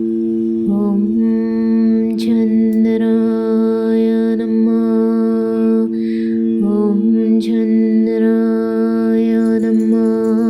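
A voice sings long, slow wordless notes in a chant-like style over a steady drone of held tones. The voice comes in two long phrases with a short break about six and a half seconds in.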